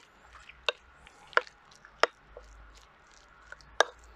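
Cream cheese filling being mixed in a bowl: soft squelching, with sharp clicks of the utensil against the bowl, the first few coming evenly about two thirds of a second apart.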